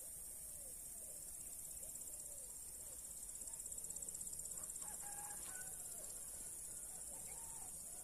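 Insects trilling: a steady, high-pitched, rapidly pulsing chorus.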